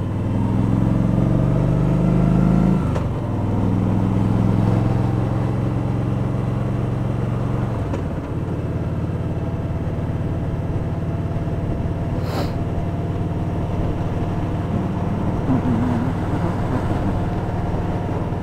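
Kawasaki Vulcan 1700 Voyager's V-twin engine running under way, louder and rising in the first few seconds. Its note breaks briefly about three seconds in and changes again near eight seconds, then holds steady.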